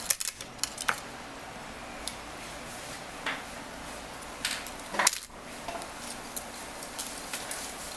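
Scattered small clicks and metal clinks of steel tweezers and iPhone parts being handled and set down on a repair bench while a phone is taken apart, with the loudest clink about five seconds in.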